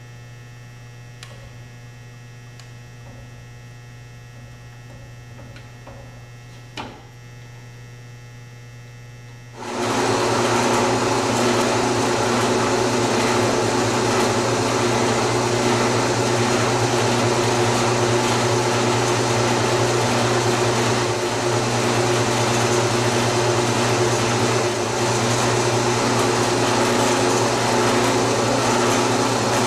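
A low steady hum with a single click, then about ten seconds in a floor drill press starts running loudly and steadily as its 5/16-inch bit drills into the end of a half-inch aluminium rod.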